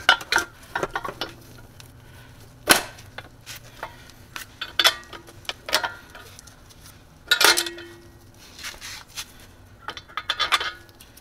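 Metal battery-box cover being set back in place and screwed down: scattered metallic clinks and knocks, some with a short ring, the loudest about three seconds in and again about seven seconds in.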